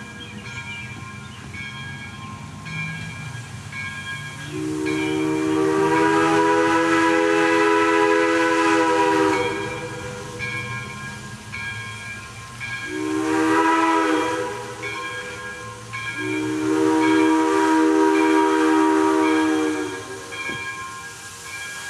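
Steam whistle of a Chinese-built JS-class 2-8-2 steam locomotive sounding a chord of several notes: a long blast, a short blast, then another long blast. A steady hiss of steam runs underneath as the engine pulls away.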